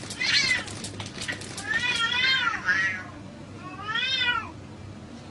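Cats yowling and meowing during a fight: about four drawn-out cries that rise and fall in pitch, the longest around two seconds in. A few sharp taps come in the first second or so.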